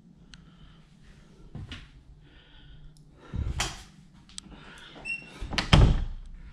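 A few clicks and a knock from handling, then an interior door pulled shut with a thud near the end.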